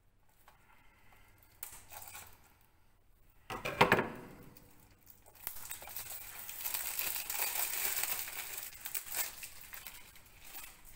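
Plastic shrink-wrap being opened on a Blu-ray case: a sharp loud rip about four seconds in, then several seconds of crinkling as the wrap is peeled away.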